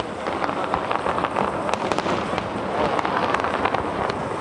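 Aerial fireworks bursting: a quick, irregular run of pops and crackles over a steady haze of noise.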